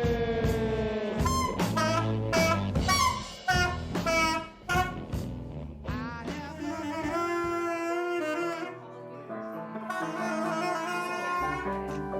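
Music playing: a melody of held and sliding notes over a low bass line, in a jazzy style with a horn-like lead.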